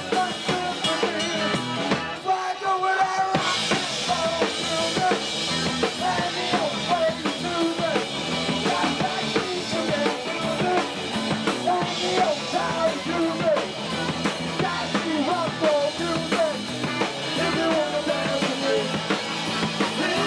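Live rock band playing, with the drum kit prominent over bass and other pitched instruments. The music thins out briefly about two seconds in, then comes back fuller and brighter.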